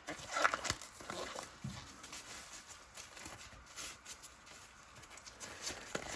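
Light, irregular taps and rustles of things being handled on a work surface, a few small knocks spread through the stretch.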